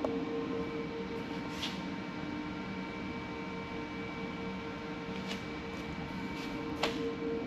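A steady hum with a few short, light clicks: one about a second and a half in, one a little past five seconds, and the sharpest near the end.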